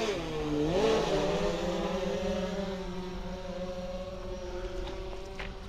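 Fishing drone's propellers whining as it lifts the baited line, the pitch dipping and rising about a second in, then holding steady and slowly fading.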